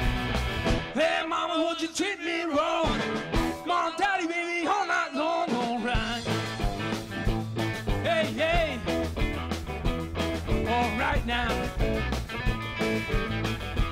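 Live blues-rock band with an amplified harmonica cupped to a hand-held microphone, playing bending, wavering notes over electric guitars. The bass and drums drop out about a second in, then the full band comes back in about six seconds in.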